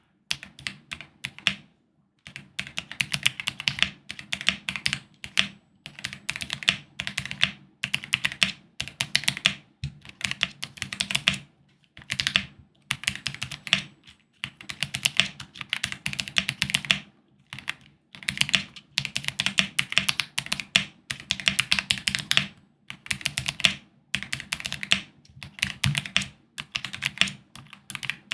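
Typing on a GMK87 mechanical keyboard fitted with Gateron curry linear switches and PBT double-shot keycaps. The keystrokes come in quick runs of a second or two with short pauses between them.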